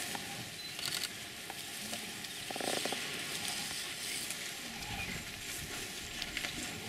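A steady hiss, with a low rumble coming in during the second half.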